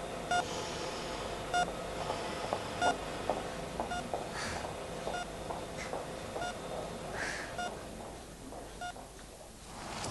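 Hospital patient monitor beeping steadily, one short tone about every 1.2 seconds, with a ventilator hissing briefly every few seconds and small clicks; it all fades near the end.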